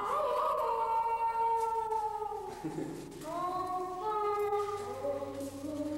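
Soundtrack music of wordless, choir-like singing: long held notes, several pitches at once, sliding slowly from one to the next, with a short lull about three seconds in.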